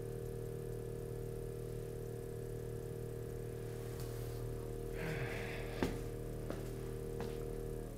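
Steady electric buzz of a mechanical string vibrator, driven by a frequency generator, setting up a standing wave on a stretched string. It cuts off suddenly at the very end. A few clicks and a short hiss come in the last few seconds.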